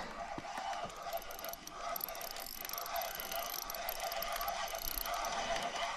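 A fishing reel being cranked, its gears whirring and ticking steadily as line is wound in on a fish that has just bitten.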